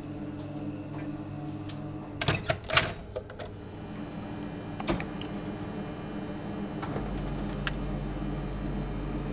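Steady room hum with a short cluster of sharp clicks and rattles a couple of seconds in, then a few single clicks. A deeper low hum starts suddenly about seven seconds in.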